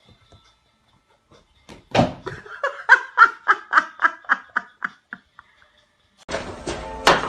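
A person laughing in a quick run of even 'ha-ha' pulses for about three seconds, starting about two seconds in. Near the end a louder, noisier sound cuts in suddenly.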